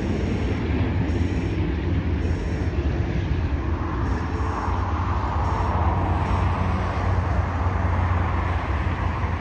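Airbus A320-family jetliner's engines on final approach: a steady low rumble, joined about four seconds in by a higher hum that holds as the aircraft nears.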